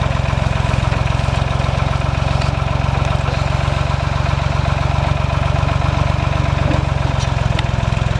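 Small Ford tractor's engine running steadily, powering the three-point-hitch backhoe, with a few faint clicks over it.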